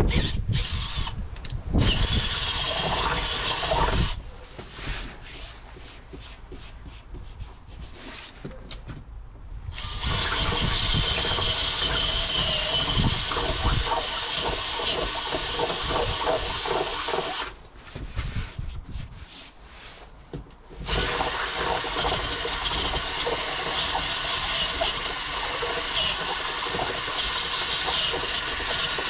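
Cordless drill boring bolt holes down through a van's plywood floor lining and steel floor. The motor runs at a steady whine in three long runs, with short pauses about four seconds in and again past the middle.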